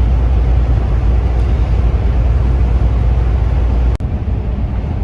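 Steady low rumble of a semi-truck heard inside its cab. About four seconds in it breaks off abruptly and gives way to a lighter rumble.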